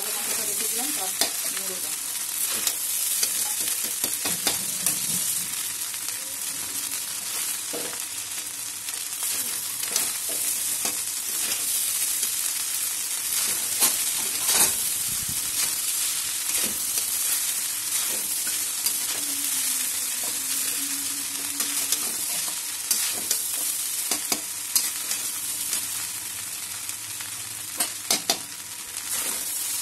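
Egg fried rice sizzling in a stainless-steel kadai while a metal spatula stirs and turns it, with frequent sharp scrapes and clicks of the spatula against the pan and a cluster of louder knocks near the end.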